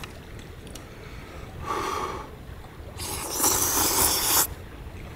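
Person eating hot udon: two breathy slurps, a short one about two seconds in and a longer, louder one from about three seconds.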